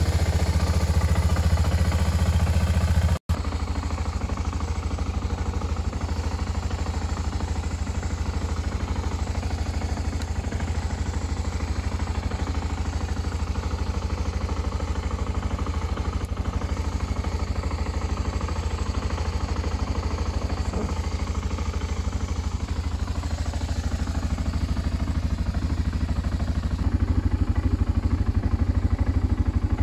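BMW F650GS's 652 cc single-cylinder four-stroke engine running at a steady idle, warming up after a cold start, with a brief break about three seconds in. Near the end the motorcycle pulls away and the engine gets louder under way.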